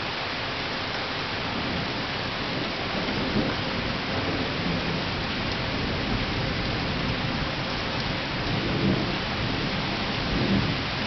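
Steady rain falling, with thunder rumbling low underneath it. The thunder swells briefly three times: a few seconds in, and twice near the end.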